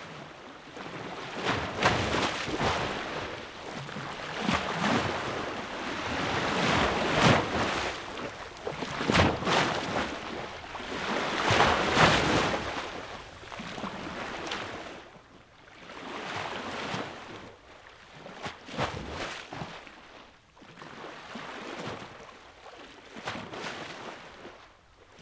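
Shallow water washing over rocks and pebbles, surging and ebbing in swells every second or two, louder in the first half and softer later.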